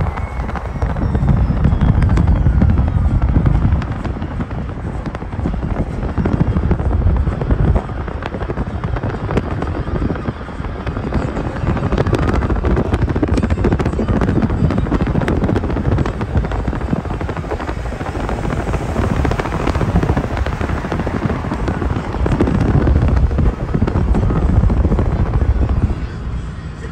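Wind buffeting the microphone over the road noise of a car moving at speed on an expressway, swelling and fading in strong low gusts.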